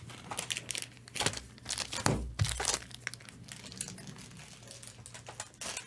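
Trading card pack wrappers crinkling and tearing as packs are opened, with cards rustling and clicking as they are handled, in irregular short bursts.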